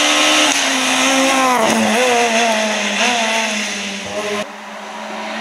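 Renault Clio rally car's engine at high revs as it passes, its pitch dropping sharply about a second and a half in, then rising and falling in short pulls as it drives away. About a second before the end the sound cuts abruptly to another car's engine, quieter and steadier.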